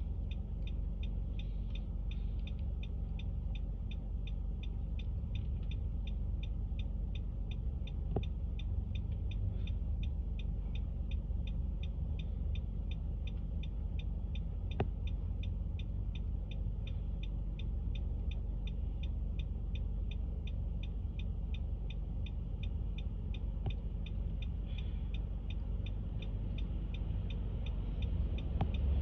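Low, steady rumble of street traffic, with a fast, even, high-pitched ticking over it, about three ticks a second.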